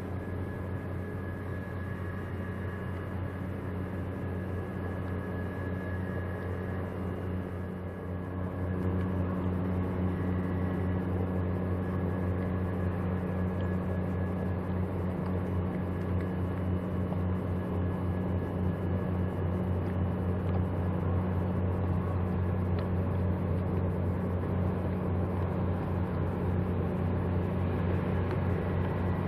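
A small car ferry's diesel engines running with a steady low drone, which grows louder about eight seconds in.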